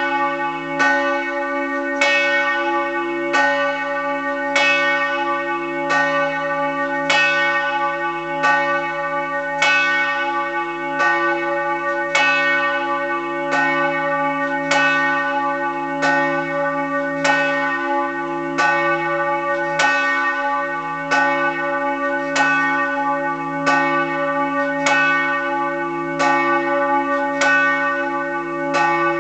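Bronze church bell 'Peter', cast by the Fischer brothers in Trnava in 1930 and tuned to C-sharp, swinging and tolling as a funeral bell. Its clapper strikes about once every second and a quarter, each stroke sounding over the steady hum still ringing from the ones before.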